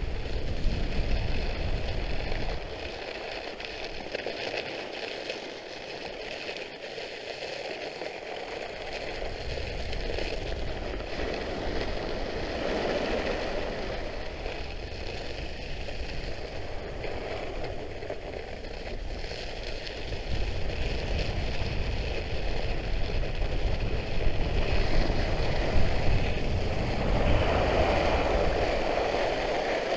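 Trikke Skki's ski blades sliding and carving over cold, hard-packed snow, a steady scraping hiss, with wind rumbling on the microphone that eases for several seconds after the start and then returns.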